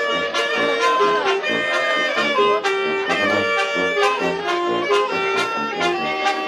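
Wind band playing a lively tune: brass and reeds carrying the melody over a steady drum and cymbal beat.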